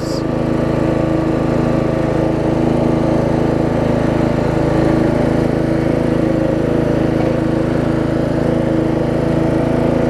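Craftsman LT1000 riding mower's engine running steadily as the mower is driven along.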